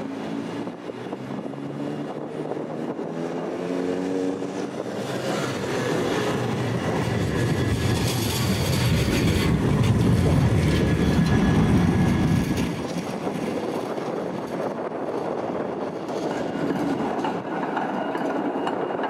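Trams and a car passing at a city tram junction: a rising and falling motor hum in the first few seconds, then a loud rumble of a vehicle passing close about eight to twelve seconds in, easing to a steady lower rumble as a tram approaches.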